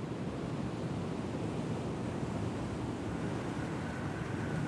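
Steady rushing of sea waves and wind, with a faint thin tone joining about three seconds in.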